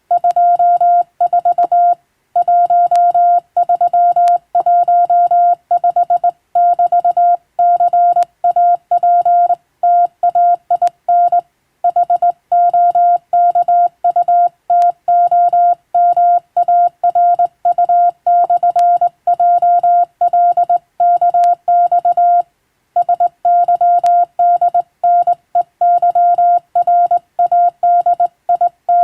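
Morse code (CW) as a single steady tone, keyed on and off in dots and dashes, with short gaps between characters and a few slightly longer pauses.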